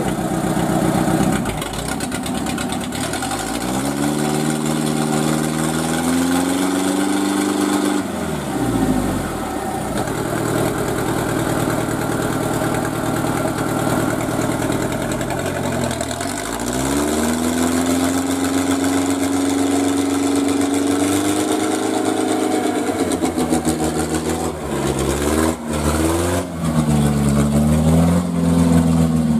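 Dump truck engine revving up and held at high revs as the truck pulls through mud. The revs drop back about eight seconds in, then climb again about sixteen seconds in. Near the end they rise and fall unevenly, with a few knocks.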